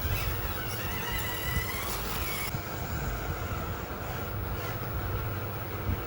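Small electric motor and gears of a radio-controlled model vehicle whining, the pitch rising and falling as it speeds up and slows, over a steady low rumble.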